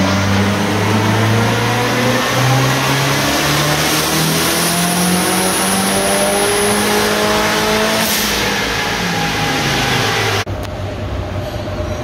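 Nissan Pulsar GTI-R's turbocharged four-cylinder engine in a full-throttle pull on a chassis dyno, its pitch climbing steadily for about ten seconds. Near the end the throttle closes and the sound drops suddenly to a lower, quieter run-down.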